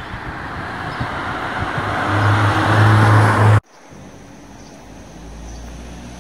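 A car driving past close by, its tyre and engine noise swelling louder with a steady low engine note, cut off abruptly about three and a half seconds in. Quieter street traffic noise with a low hum follows.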